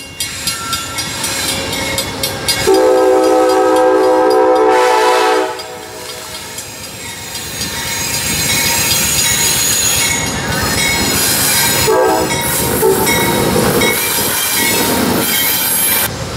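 GE P42 diesel locomotive arriving on a curve, sounding its horn in one long blast a few seconds in and a short toot about twelve seconds in, over the rumble of the engine and wheels. Thin high squealing from the wheels on the curved track runs through the later part.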